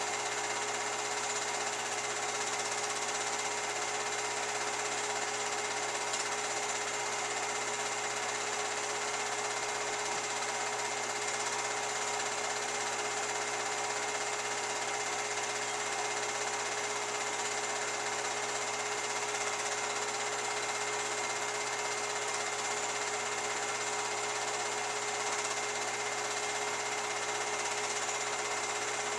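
Film projector running, a steady mechanical whir that stays even throughout.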